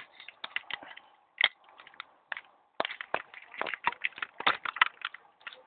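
Plastic parts of a Power Rangers Dino Megazord toy clicking and knocking as it is handled and stood up in Megazord mode: an irregular run of small sharp clicks, thickest in the second half.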